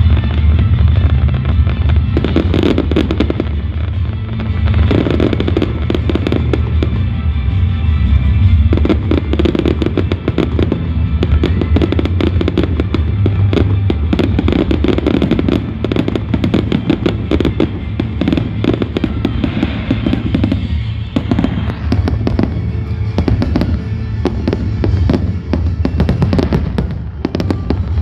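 Fireworks display firing continuously: dense salvos of bangs and crackle, over loud music with a heavy low end.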